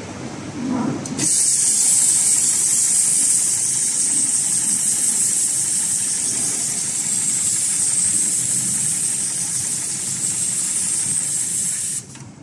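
HighTex 71008S heavy-duty programmable pattern sewing machine running through a stitch cycle on thick webbing strap, with a loud steady hiss over its running. The hiss starts abruptly about a second in and stops suddenly near the end as the cycle finishes.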